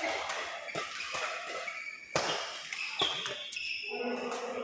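Sharp hits from a game being played in an indoor sports hall: two hard strikes about a second apart in the middle, with short high squeaks and background voices, the hall giving an echo.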